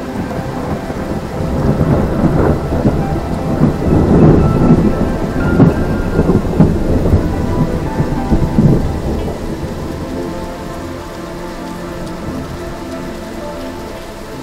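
Heavy rain falling on a puddle, with a long rolling peal of thunder that builds about two seconds in, is loudest around the middle and dies away before the end.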